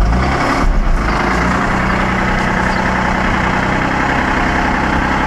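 Mazda RX-8's twin-rotor Renesis rotary engine running, heard at the tailpipe. Its pitch shifts briefly in the first second, then it settles into a steady idle.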